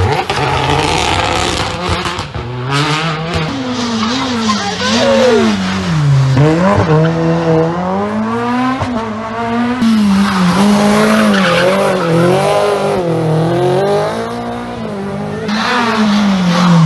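Small hatchback rally cars' engines revving hard through a hairpin, one car after another, the pitch dropping on braking and downshifts and climbing again as each accelerates away.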